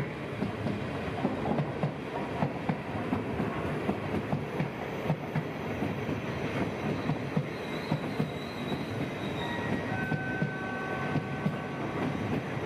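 Dutch NS intercity electric train rolling past, its wheels clacking rapidly over rail joints and points. Thin, high wheel squeals join in during the second half.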